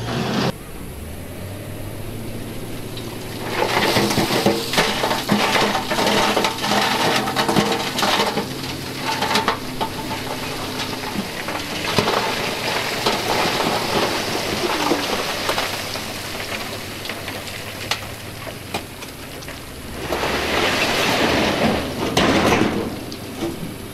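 Diesel engine of a wheel loader working, with stones clattering and scraping as its bucket pushes rock. The clatter is loudest from about 4 to 9 seconds in and again around 20 seconds in.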